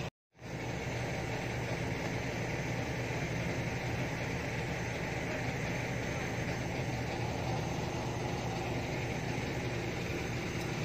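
Heavy diesel engine idling steadily, its low drone unchanging; the sound drops out for a moment right at the start.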